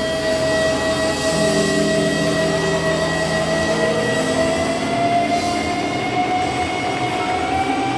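Live rock band's amplified noise drone: a sustained feedback tone from the electric guitar slowly slides upward in pitch over a distorted, noisy wash. Low held notes come in about a second and a half in.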